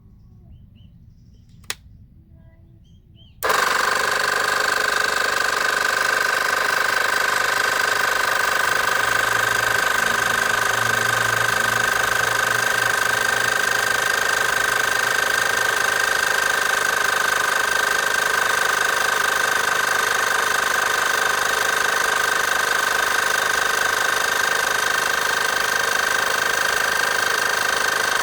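Portable car tyre inflator (FELIZ air compressor) switching on a few seconds in and running steadily, with a strong high whine over its motor and pump noise. A single sharp click comes shortly before it starts.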